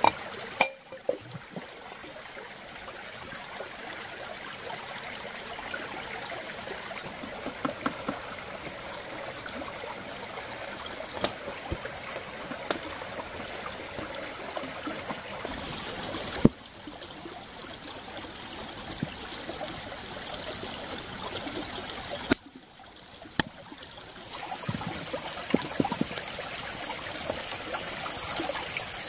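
Small mountain stream trickling and running over rocks in a steady hiss, with scattered light clicks and knocks. The water sound changes abruptly in level a few times.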